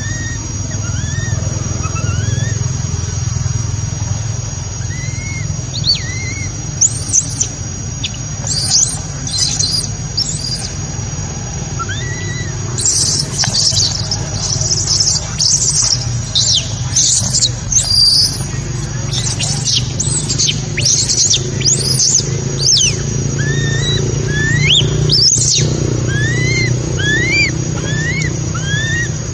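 High-pitched animal calls: short rising chirps repeated all through, growing into a dense stretch of very high chirping in the middle, over a steady low hum.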